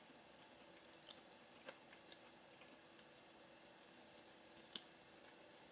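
Faint chewing of a forkful of omelet, with a handful of soft, scattered clicks over near-silent room tone.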